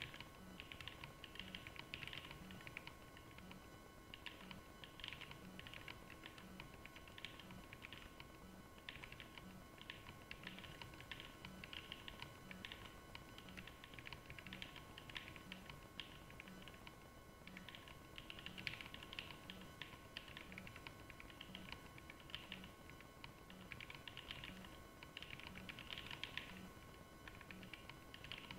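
Fast, continuous typing on mechanical keyboards, a steady patter of key presses, over a faint steady hum.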